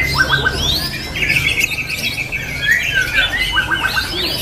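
Oriental magpie-robin (kacer) singing a loud, varied song of sweeping whistles and harsh notes, with a fast rattling trill in the middle.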